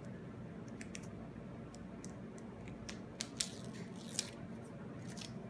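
Faint crinkling and clicking of an adhesive patch and its paper backing being handled and pressed onto the skin, with a few sharper crackles about three and four seconds in, over a low steady hum.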